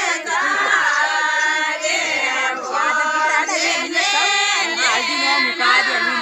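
A group of women singing a folk song together, several voices overlapping in a continuous chorus.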